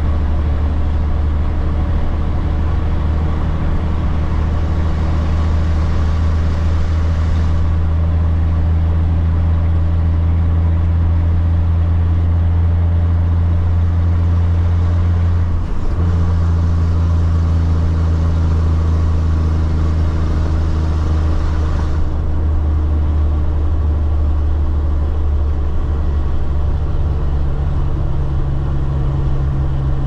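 Caterpillar 3406B inline-six turbo diesel of a cabover semi droning steadily at highway cruise, heard from inside the cab along with road noise. The engine note dips briefly about halfway through and shifts slightly near the end.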